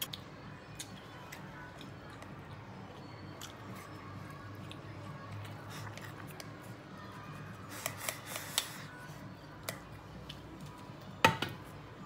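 Chopsticks clicking and scraping against a stainless steel bowl while eating, in scattered light taps with a busier patch past the middle. A loud ringing clink comes about a second before the end.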